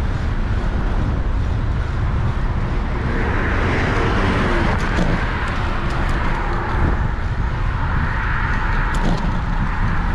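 Cars passing on a city street, heard from a moving bicycle: tyre and engine noise swells as a car goes by about three seconds in, and again near the end. A steady low wind rumble on the microphone runs underneath.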